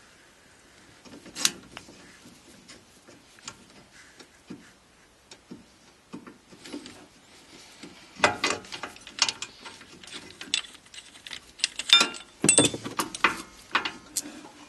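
Brake caliper piston wind-back tool being turned to push and rotate a rear caliper piston back into its bore, then taken off, with the caliper handled. It makes scattered small metal clicks, then a denser clatter of metal clicks and knocks from about eight seconds in.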